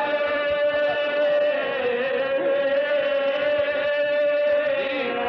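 A man's voice chanting a Shia elegy (masaib) through a microphone and loudspeakers, holding one long sung note that wavers slightly near the middle.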